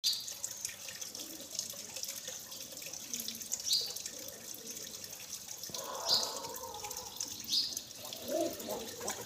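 Water running from a tap and splashing steadily, with a few brighter plinks every couple of seconds.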